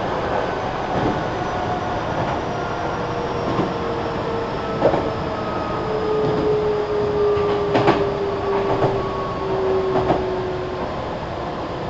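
Meitetsu 3300 series electric train running: a steady rumble and hiss under the whine of the traction motors, which falls slowly in pitch, with the wheels clicking over rail joints a few times.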